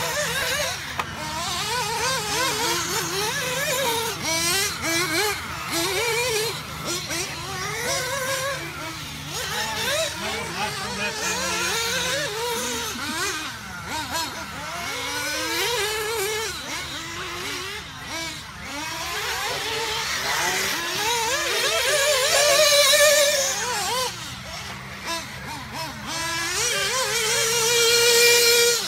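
Several 1/8-scale nitro RC buggies running around a dirt track, their small engines revving up and down in overlapping high-pitched whines. Near the end one engine holds a steady high pitch at full throttle.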